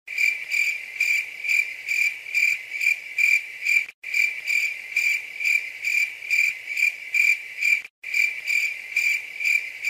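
Looped crickets-chirping sound effect: a cricket's high, even chirps repeating about two to three times a second, cutting out for an instant every four seconds where the loop restarts. This is the usual comic cue for an awkward silence.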